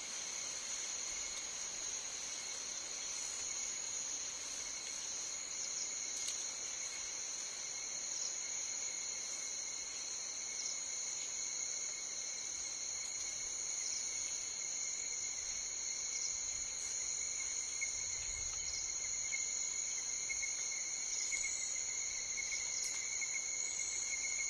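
Steady chorus of tropical forest insects, several high, unbroken shrill tones at different pitches layered together.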